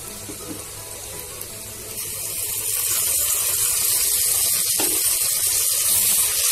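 Sliced onions sizzling in hot oil in a clay pot, the sizzle growing louder about two seconds in as ginger-garlic paste goes in and is stirred with a wooden spatula. One knock about halfway through.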